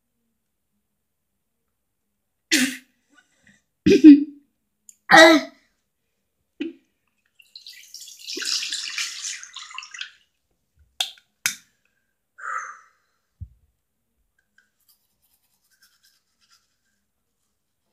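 Toothbrushing at a bathroom sink, heard as scattered short sounds: three sharp ones in the first third and a hiss lasting about two seconds near the middle. Two clicks and a low knock follow, with quiet gaps between.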